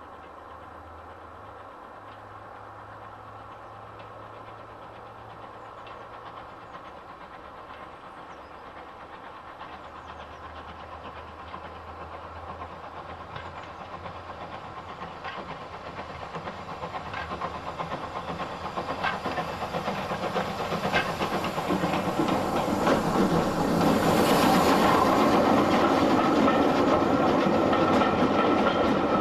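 Steam tank locomotive hauling a train of coaches, approaching and passing close by: its sound grows steadily louder over about twenty seconds, with clicks from the wheels over the rail joints and a loud hiss of steam as it draws level.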